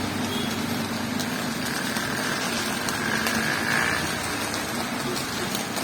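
Steady wash of heavy rain with the low hum of a running engine underneath.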